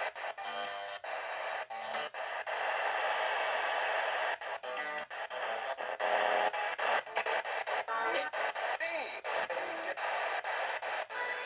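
Music on an FM radio broadcast, with sung or voiced parts here and there.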